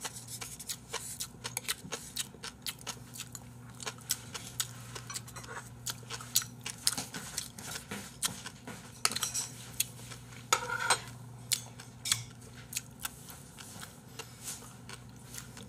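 Eating at a table: chewing, with quick clicks and taps of chopsticks and a fork against plastic food containers and small dishes, over a faint steady low hum.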